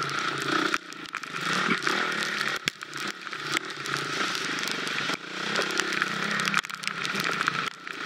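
Husqvarna FX 350 dirt bike's four-stroke single-cylinder engine under hard throttle, dropping off and picking back up about five times as the rider chops and reapplies the throttle. Sharp clicks and knocks of the bike over rough ground come through throughout.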